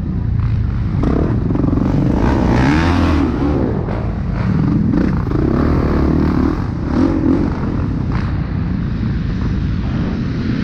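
Motocross bike engine heard from on board while racing on a dirt track, its note rising and falling several times as the rider accelerates and backs off.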